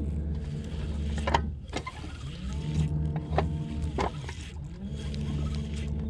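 Small electric motor, most likely a boat's trolling motor, humming in spurts: its pitch sinks as it eases off and climbs as it comes back on, about every two seconds. A few sharp clicks are heard over the hum.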